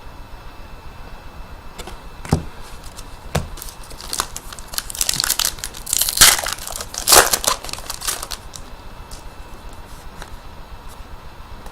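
Two light knocks, then a few seconds of a trading-card pack wrapper being torn open and crinkled, loudest in the middle.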